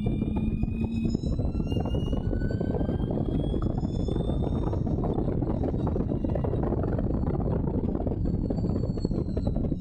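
Allard J2's V8 racing engine under hard acceleration, heard from the open cockpit, with heavy wind rush on the microphone. The engine's whine climbs steadily over the first few seconds.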